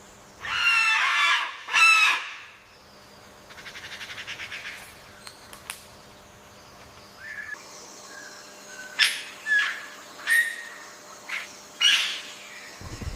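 Bird calls: two loud, harsh calls in the first two seconds, a fast rattling trill around four seconds in, then a run of short, sharp calls near the end.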